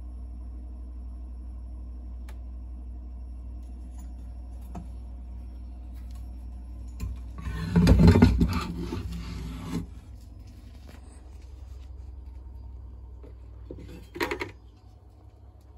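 Steady low electrical hum from running equipment, broken about halfway by a loud rubbing, scraping noise lasting two or three seconds, and by a short scrape near the end, after which the hum drops away.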